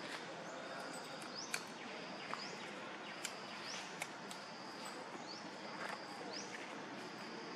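Outdoor ambience: a steady faint hiss with short, high, rising chirps every second or two and a thin high whine in short stretches, plus a few sharp clicks.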